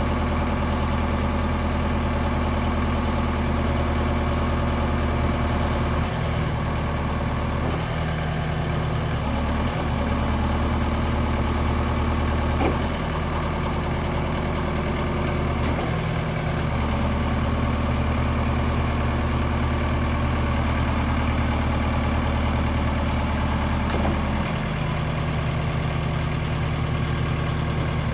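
Combilift C14000 forklift's diesel engine running steadily, its note shifting several times as the load or engine speed changes, with a faint high whine that dips slightly at each shift.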